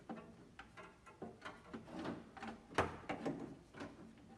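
Handling noise as a power cord is fed through a small hole in the side of an A/C unit: a string of irregular clicks, rubs and scrapes, with one louder knock about two-thirds of the way through.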